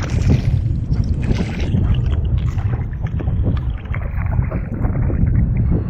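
Sea water splashing as a crab is pulled up out of shallow water between two metal rods, then scattered drips and small splashes, over a steady rumble of wind on the microphone.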